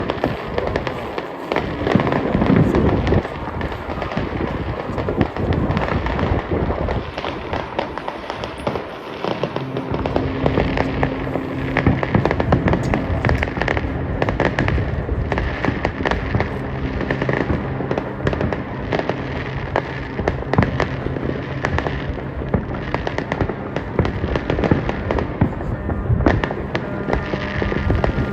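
Aerial fireworks display: a dense, continuous run of shell bursts and crackling bangs. Music with long held notes comes in under the bursts about ten seconds in.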